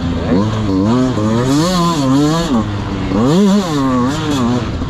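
Dirt bike engine revving up and down as the throttle is worked while riding, its pitch rising and falling several times, highest about two seconds in and again about three and a half seconds in.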